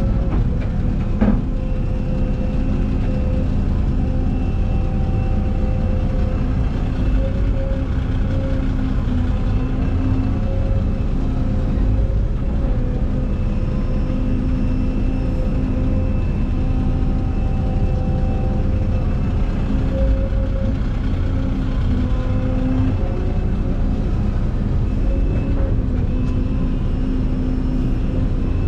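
Heavy diesel equipment engine running steadily under load, with a single knock about a second in.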